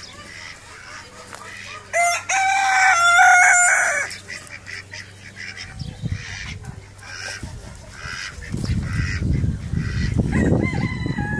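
Rooster crowing once, loud, for about two seconds starting about two seconds in, with fowl clucking on and off around it. A low rumbling noise comes in near the end.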